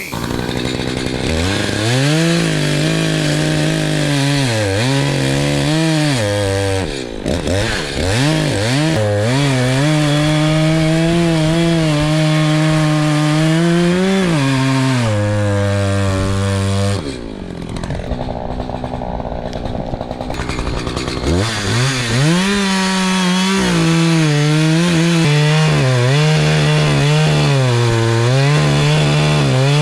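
Echo CS-590 Timberwolf two-stroke chainsaw cutting wood at high revs, its pitch sagging and recovering under load. The revs drop off briefly about seven seconds in, and for a few seconds about seventeen seconds in, before it revs up and cuts again.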